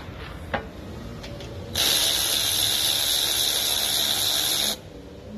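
Cordless DeWalt drill-driver with a 13 mm socket spinning the bolt out of the AC condenser line fitting. It runs for about three seconds with a steady high whine, then cuts off suddenly. A few light clicks come before it.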